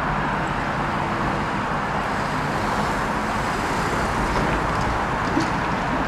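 Transport for Wales class 175 diesel multiple unit approaching at low speed: a steady drone of its diesel engines and running gear, with a single light knock about five seconds in.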